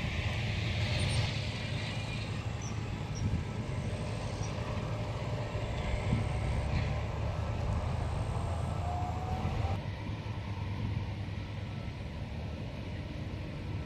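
Diesel engines of heavy harvest machinery, combine harvesters and tractors, running steadily under load in a corn field: a continuous low rumble with a mechanical hiss above it. About ten seconds in the sound changes abruptly and the higher part falls away.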